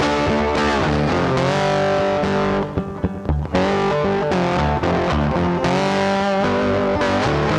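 Background music led by guitar, with a short drop in level about three seconds in.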